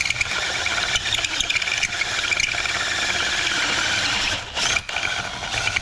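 DeWalt 20V MAX cordless drill running a step bit through the thin aluminum wall of an intake tube, enlarging the hole one size, with a steady cutting whine. The drilling breaks off briefly about four and a half seconds in, then starts again.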